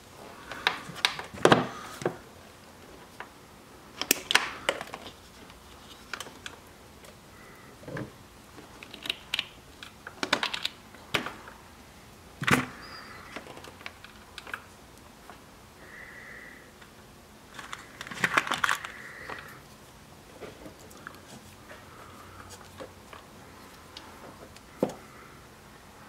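Scattered small clicks and rustles of hands handling electrical wires and a plastic solder butt connector, pushing the connector onto a red wire; no heat gun is running.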